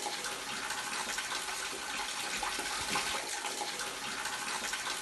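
Sewage water leaking through a ceiling, streaming down in thin streams and splashing steadily.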